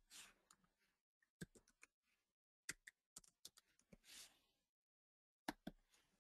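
Faint keystrokes on a computer keyboard typing a password: an irregular run of quick clicks in small clusters, ending with a couple of clicks near the end as the login is submitted.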